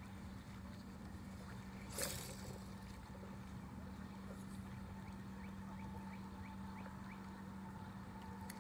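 Steady low hum of a distant motorboat engine across the water, with one brief sharp noise about two seconds in.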